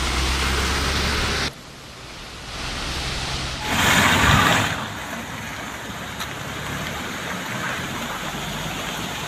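Outdoor field sound, a steady hiss without speech. A low rumble under it cuts off abruptly about a second and a half in, and a louder rush of noise comes about four seconds in and lasts about a second.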